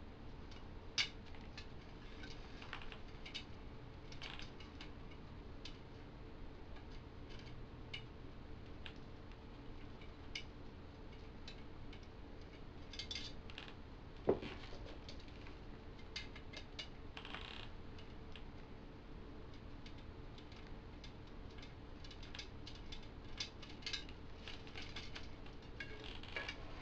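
Light metallic clicks and ticks of steel bicycle spokes being handled and threaded through the hub motor's flange into the rim, scattered irregularly over a faint steady hum, with a sharper knock about a second in and a louder one about fourteen seconds in.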